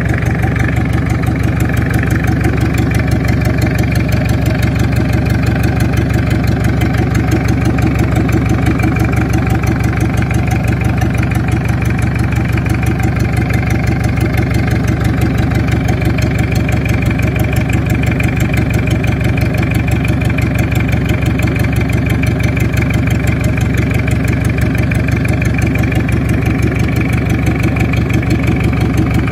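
Toyota 1DZ-II four-cylinder diesel forklift engine, running on a test stand, idling steadily with an even diesel beat.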